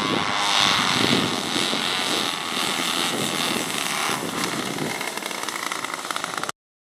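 Engines and propellers of a large four-engine radio-controlled model of a Handley Page H.P.42 airliner running as it comes in low and lands, loudest about a second in; the sound cuts off suddenly near the end.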